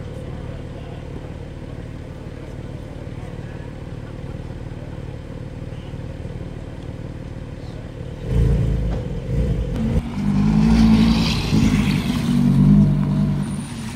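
Car engine rumbling low and steady, then about eight seconds in a much louder engine comes in, revving hard for several seconds.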